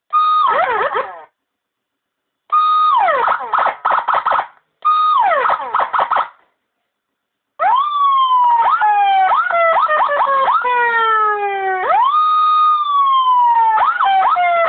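Nine-tone electronic siren cycling through its tones. It starts with short bursts, each a steady tone that drops into quick falling chirps, separated by brief pauses. From about eight seconds in it sounds continuously: slow falling wails broken by quick chirps, a held tone that slides down again, then a fast repeating yelp near the end.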